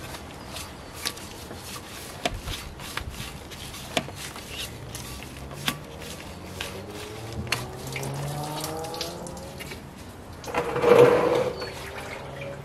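Radiator hose and its spring clamp at the thermostat housing of a 2005 Toyota Camry being worked loose by hand: scattered small clicks and rattles, and the rubber hose squeaking as it is twisted on its neck. A short, louder rushing noise comes near the end.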